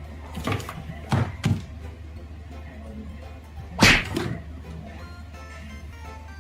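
A few knocks and thumps over a steady low hum, the loudest a heavier thump about four seconds in; faint music comes in over the last second or so.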